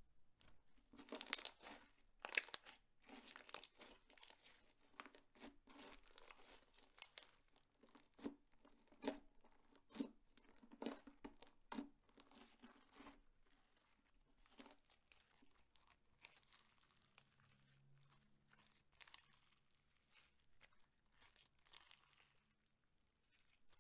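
Clear slime being squished and stretched by hand, giving irregular sticky crackles and pops that are busier and louder through the first half and thin out later.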